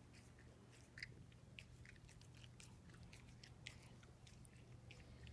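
Dog chewing hard, sticky saltwater taffy: faint, irregular wet clicks and smacks of its jaws and tongue working the candy that is stuck to its teeth.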